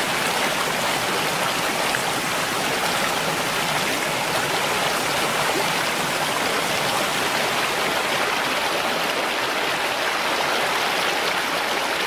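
Mountain stream flowing, a steady, unbroken rush of running water.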